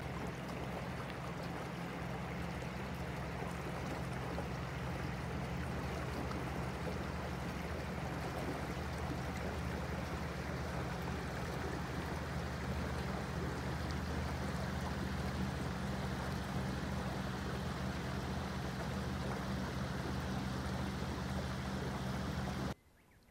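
Steady rush of water with a low, even motor hum beneath it. It begins and cuts off abruptly.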